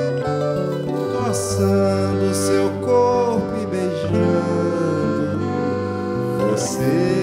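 Live acoustic trio of accordion, bandolim and acoustic guitar playing together, with a man singing the melody over them.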